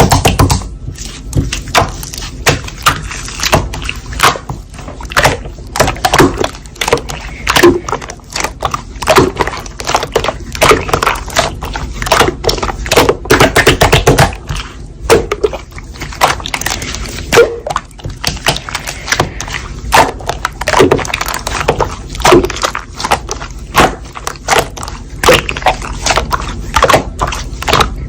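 Slime being squeezed and pressed by hand, giving a dense, irregular run of sharp clicks and pops.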